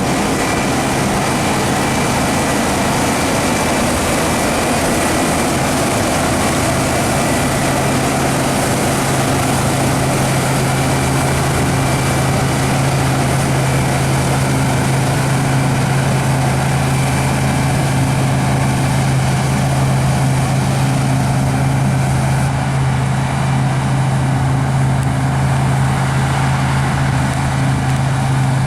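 Heavy diesel engine of harvest machinery running steadily, with a low steady drone under a wide rush of mechanical noise. The drone grows stronger about six seconds in.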